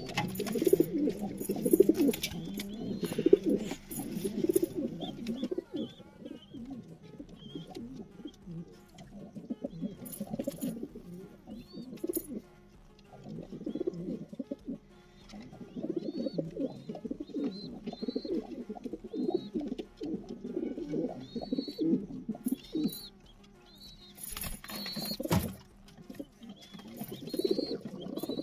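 Several pigeons cooing together, their low coos rising and falling in waves, with short high chirping notes repeating through the second half.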